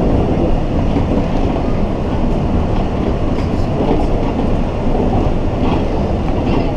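Steady rumble of a vehicle in motion, with a few faint clicks.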